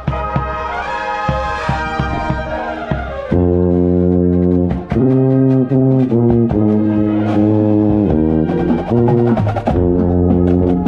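Drum corps brass line playing loud, heard from beside a marching contrabass (contra) player with drum strokes ticking under the first few seconds. About three seconds in, the low brass comes in loud with held chords in short phrases.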